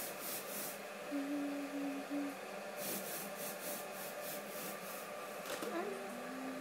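Baby hamster nibbling on a fingertip it takes for a chewing stick, making quick, rhythmic scratchy gnawing strokes, about six a second, in two short runs near the start and about three seconds in. A person hums softly a couple of times.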